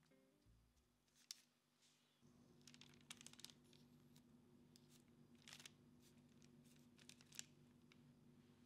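Faint clicks and scrapes of metal spoons against each other and the plate as dollops of pistachio spread and peanut butter are scraped off, in a few short clusters. A low steady hum comes in about two seconds in.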